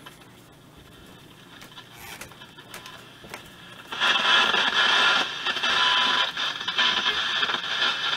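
Hallicrafters S-120 vacuum-tube shortwave receiver being tuned across the band: faint hiss with scattered clicks, then about four seconds in a loud rush of static from its speaker.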